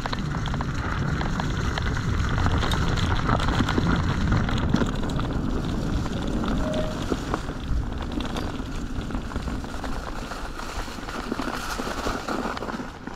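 Mountain bike (an Orbea Occam H20) being ridden along a rough trail, heard from the rider's camera: a steady rush of tyre and wind noise on the microphone with many small clicks and rattles. It eases off near the end as the bike slows.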